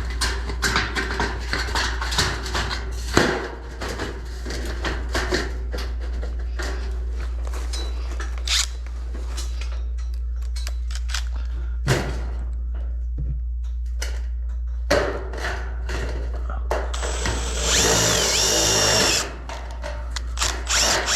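Cordless drill or screw gun running for about a second and a half near the end, used for driving fine-thread drywall screws through steel stud track. Earlier there are many clicks and knocks from handling steel studs and track, over a steady low hum.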